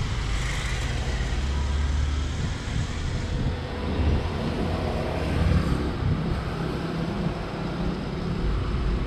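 A steady low rumble of motor noise, like road traffic, with no distinct events.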